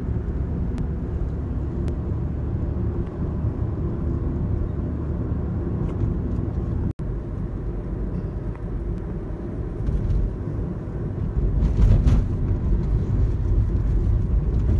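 Road and engine noise inside a moving car's cabin: a steady low rumble, swelling louder for about a second near the end.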